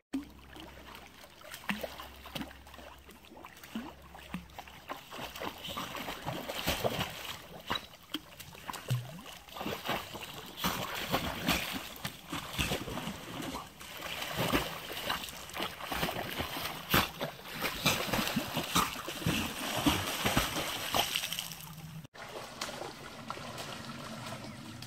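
A Labrador swimming in a river, splashing and churning the water as it paddles, in irregular splashes. Near the end the splashing gives way to a quieter, steadier wash of water.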